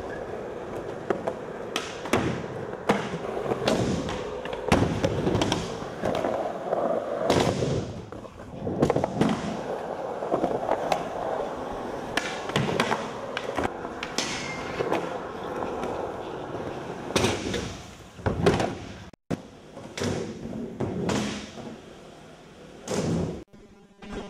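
Skateboard wheels rolling on a smooth concrete floor and ramps, punctuated by many sharp clacks and thuds of the board popping, landing and slapping down. The sound cuts out abruptly twice near the end.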